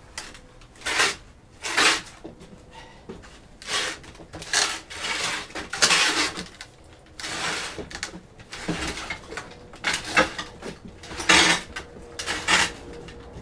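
Wooden pallet loaded with an engine being shoved across a concrete floor in short pushes, the wood scraping on the concrete in about ten separate bursts.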